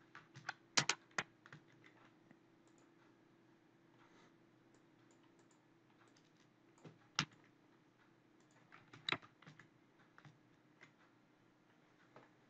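Faint, scattered keystrokes on a computer keyboard, in short irregular clusters with pauses between: a quick run in the first second, a sharper single tap about seven seconds in, and another short run about nine seconds in.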